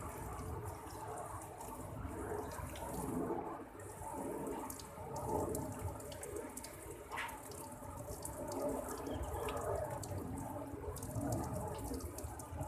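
Water splashing and dripping as a black-naped oriole is given its bath, with many small irregular drips and splashes over a steady wash of running water.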